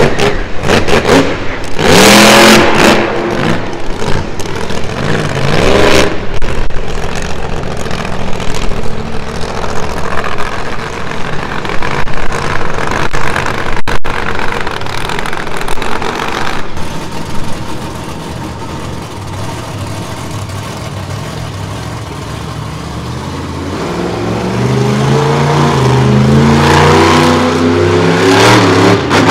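Monster truck engine revving hard in bursts of throttle, then climbing in a long rise of revs near the end before cutting off sharply.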